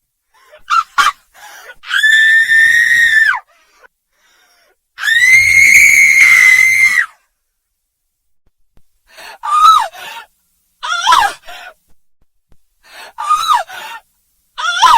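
A woman screaming, high-pitched and loud. Two quick yelps lead into two long held screams, each about a second and a half. Then come four shorter, broken cries that fall in pitch.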